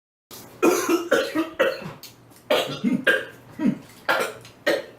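A person in a coughing fit, about eight harsh coughs in quick succession, brought on by extremely spicy noodles.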